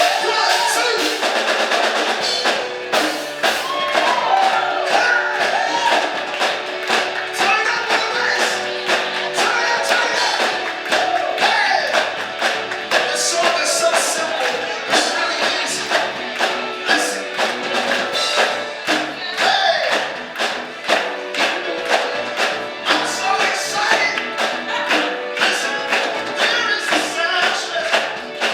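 Music with singing voices over a steady percussion beat.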